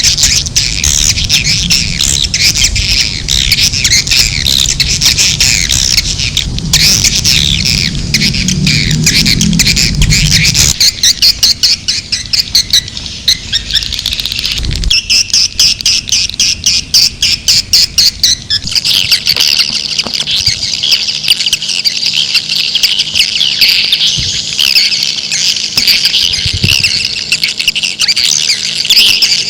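Recorded edible-nest swiftlet calls, a dense high twittering chatter of many birds. From about 11 to 18 seconds in, it turns into a run of quick, evenly spaced chirps, and a low rumble lies under the first ten seconds or so. This is a lure call used to draw swiftlets into a nesting house.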